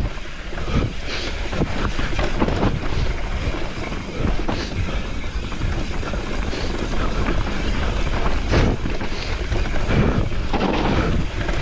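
Mountain bike descending a trail: wind rushing over the microphone and tyres rolling over dirt and stones, with frequent knocks and rattles from the bike over rough ground.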